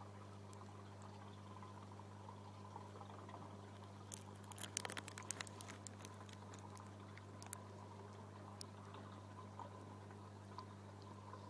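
Faint aquarium background: a steady low hum with a light trickle of water, typical of a running filter or air pump. A brief cluster of small clicks comes about four to six seconds in, with a few single ticks later.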